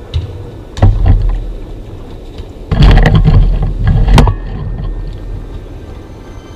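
Heavy knocks and deep rumbling from the netted side wall of an indoor soccer cage as players shove up against it beside the camera: one sharp knock just under a second in, then a longer spell of loud knocks and rumble from about three to four seconds in.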